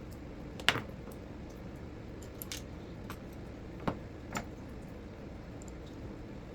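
Small parts being handled during a repair: a few sharp clicks and taps. The loudest comes about a second in, with others near two and a half and four seconds, over a steady faint background noise.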